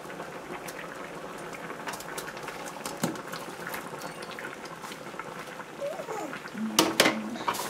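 Coconut-juice fish curry simmering and bubbling in a frying pan while fried fish pieces are slid off a plate into it. A few sharp clicks sound over the bubbling, the loudest cluster near the end.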